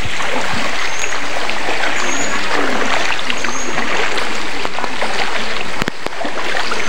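Shallow stream running over rocks in a steady rush, with feet splashing as someone wades through the water. Short high chirps repeat about once a second.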